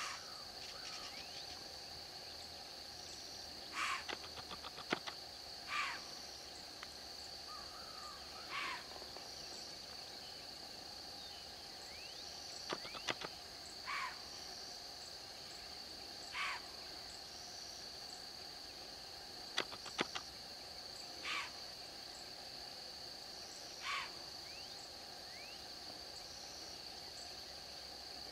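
A steady high-pitched insect drone, with a bird giving short single calls every two to three seconds, about ten in all. A few sharp clicks come around four to five seconds in, around thirteen seconds in and around twenty seconds in.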